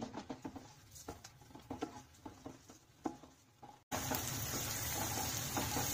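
Light scattered taps from stirring chopped onion in the pan, then, about four seconds in, an abrupt switch to a steady sizzle of the onion frying in butter and oil.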